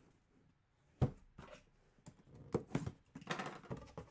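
Handling of a cardboard memorabilia box: a sharp knock about a second in, then a run of clicks and rustling as it is handled and opened.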